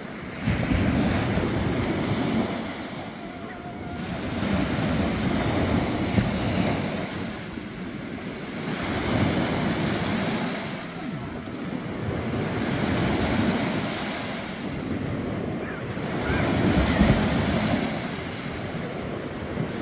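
Small waves breaking and washing up on a sandy beach, swelling and fading every three to four seconds, with wind buffeting the microphone.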